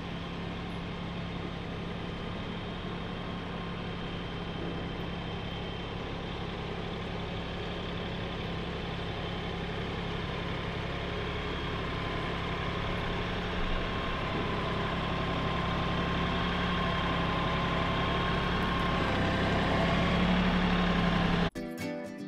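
Tractor engine running steadily as the tractor drives along a dirt trail, growing louder as it comes closer. Near the end it cuts off abruptly and acoustic guitar music begins.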